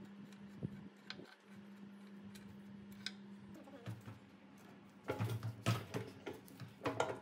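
A few light metallic ticks of wrenches on a bolt over a faint steady hum that stops about three and a half seconds in. From about five seconds in comes a run of heavy metal clanks and knocks, the loudest part, as the V-type air compressor pump is set down and shifted on a steel checker-plate bench.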